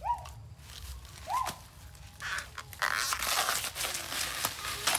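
Fibrous outer sheaths of a banana plant's stem being peeled and torn off by hand. A dense, crackling tearing starts about two seconds in and runs until just before the end.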